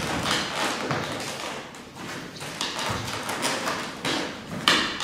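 Irregular thumps and taps of people moving and stepping on bare wooden floorboards, with rustling between the knocks.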